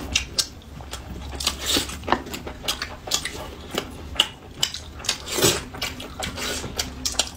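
Eating at a table: chopsticks clicking and tapping against plates, with chewing. A string of short, irregular clicks over a steady low hum.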